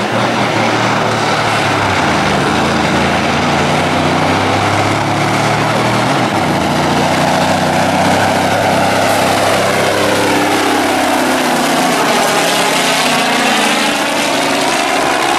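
A semi truck's diesel engine running hard under heavy load as it pulls a weight-transfer sled, loud and steady. Its note dips and then climbs again near the end as the truck passes close by.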